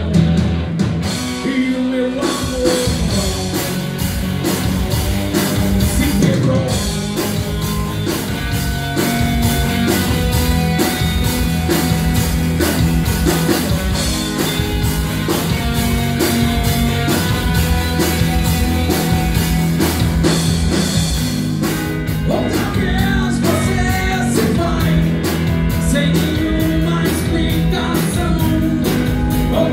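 Live rock band playing, with two electric guitars, bass guitar and a drum kit under a lead singer.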